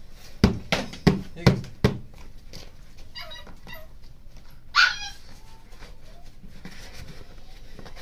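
Five quick, sharp hand taps in the first two seconds near an upturned plastic jar holding a trapped snake. Around the middle, a dog gives a few short, high whimpering yelps.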